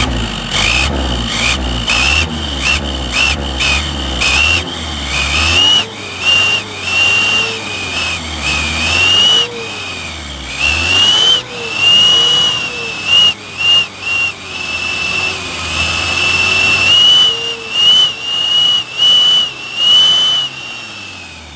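Aluminium turbo-sound whistle clipped into a truck's exhaust tailpipe, its tongue just re-adjusted, whistling as the engine is revved again and again. It gives a high whistle that rises and falls with each rev over the engine's low running: quick short blips at first, then longer, held revs.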